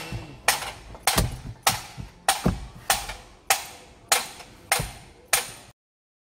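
Background music made of a steady beat of sharp percussive knocks, about one every 0.6 seconds, cutting off abruptly shortly before the end.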